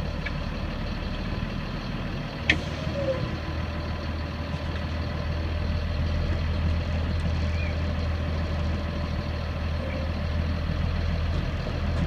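Diesel engine of a 2005 Blue Bird Vision school bus idling steadily, heard from the driver's seat as a constant low hum. A single sharp click comes about two and a half seconds in, after which the hum is a little stronger.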